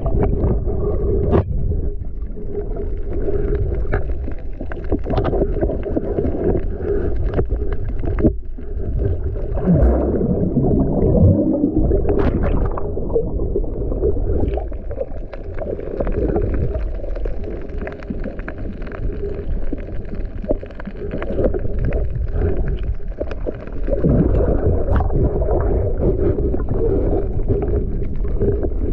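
Underwater noise picked up by a submerged camera: muffled water rushing and gurgling, with scattered clicks and knocks from movement against the camera housing.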